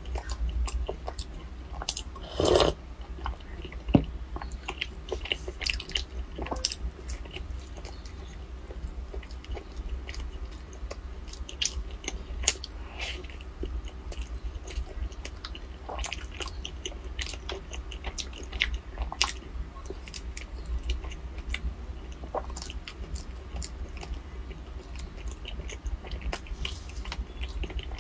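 Close-miked eating: a person bites and chews with many small wet and crunchy clicks, with a louder burst of noise about two and a half seconds in.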